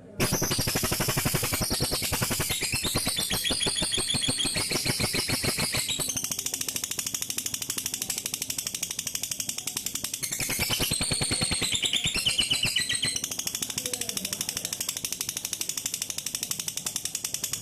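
Lovebird giving a long, unbroken ngekek: a rapid chattering trill of sharp, high notes, sustained without breaks and cutting off just before the end. This is the strong, continuous delivery prized in a fighter lovebird, not a broken, stuttering one.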